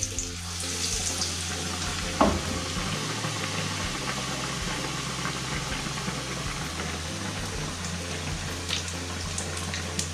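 Battered bread pakoda deep-frying in hot oil in a kadhai: a steady sizzle that sets in as the slice goes into the oil. A single sharp clack about two seconds in, plus a few small ticks near the end.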